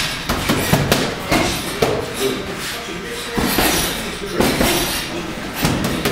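Gloved punches smacking into leather focus mitts: a dozen or so sharp slaps in quick, irregular combinations.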